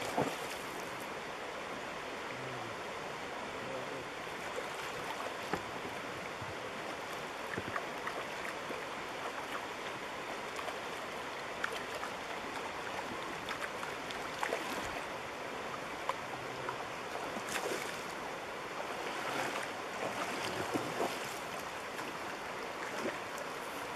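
Shallow river running over rocks, a steady rush of water, with a handful of short sharp splashes from a hooked fish thrashing at the surface.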